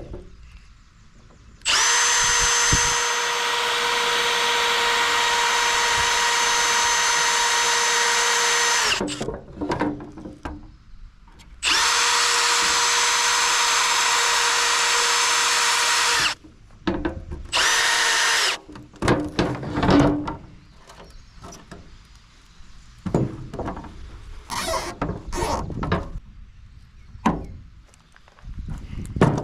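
Power drill running at a steady high whine in two long runs, about seven seconds and then four, followed by a short burst, drilling holes during a stump grinder repair. Scattered knocks and clatter follow in the last ten seconds.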